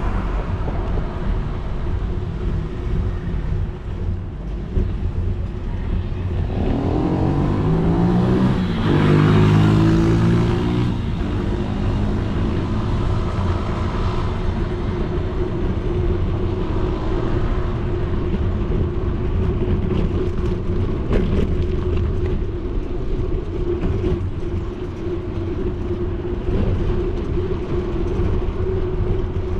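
Steady wind and road rumble on the microphone of a bicycle-mounted action camera while riding, with a steady hum. A motor vehicle passes about 7 to 11 seconds in, its engine pitch rising and then falling.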